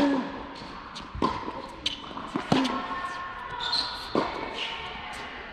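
Tennis rally on an indoor hard court: sharp pops of racket strings hitting the ball and the ball bouncing, echoing in a large hall. The loudest hit comes right at the start, with more strikes and bounces about every second to second and a half.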